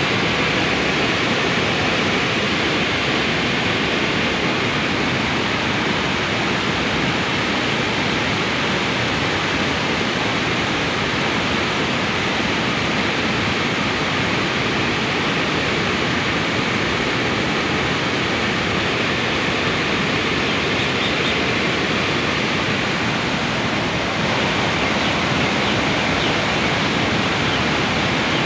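Water rushing through the open spillway gates of the Khandong dam, released to ease flooding after heavy rain. It makes a steady, unbroken roar of white water.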